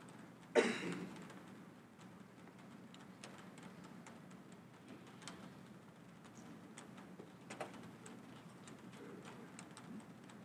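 Quiet room tone broken by one brief, louder knock about half a second in, then faint scattered clicks and taps.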